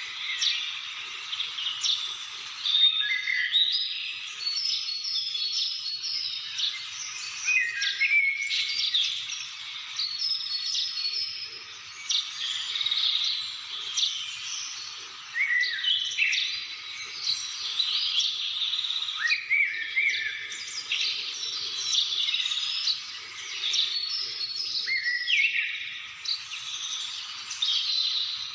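A chorus of many birds chirping and singing at once, high-pitched calls and short sweeping phrases overlapping without a break.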